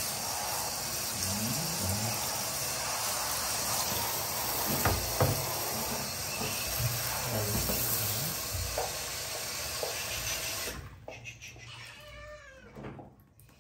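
Handheld shower spraying water steadily onto a wet kitten in a bathtub, with faint meows under the spray; the water shuts off suddenly about eleven seconds in, and then the scared kitten meows plainly a few times.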